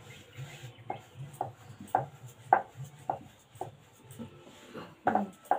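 Wooden rolling pin rolling out a roti on a wooden board, clacking about twice a second with the back-and-forth strokes.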